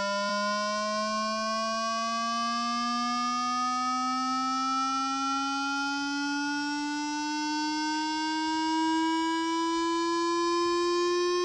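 Water-eject tone: a steady low electronic hum gliding slowly upward in pitch, with a buzzy stack of overtones above it. It is meant to shake water out of a wet phone speaker.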